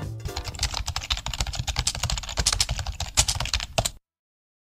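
Computer keyboard typing: a fast, uneven run of key clicks as a web address is typed, cutting off suddenly about four seconds in.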